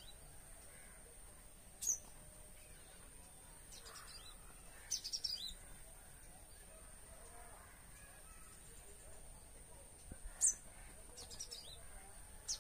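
Purple-rumped sunbird giving sharp, high-pitched falling calls in scattered bursts, the loudest about two and ten seconds in, with quick runs of notes around five and eleven seconds in. These are the incessant distress cries of a parent bird whose nest has just been destroyed.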